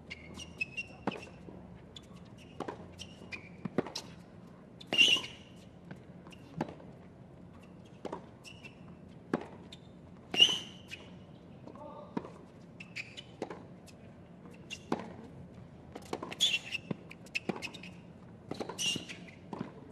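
Tennis rally on a hard court: a tennis ball struck back and forth by rackets and bouncing on the court, a sharp pop every second or so, some shots much louder than others.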